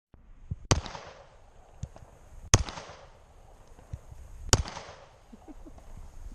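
Three handgun shots fired about two seconds apart, each a sharp crack with a short echo, with fainter pops in between.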